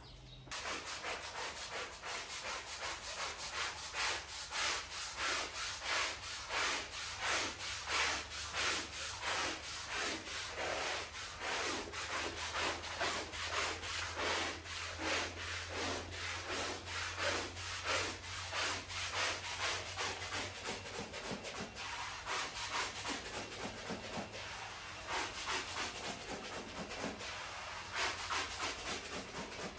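Long-handled scrub brush scrubbing a wet, soapy rug, in quick back-and-forth strokes, about two to three a second, starting about half a second in.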